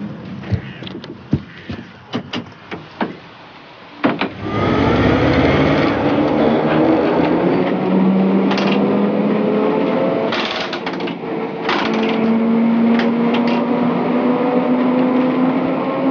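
Electric tram pulling away. A few sharp clicks and knocks, then about four seconds in a rumble starts as the car gets moving, and the traction-motor whine climbs slowly as it picks up speed, stepping up again near the middle.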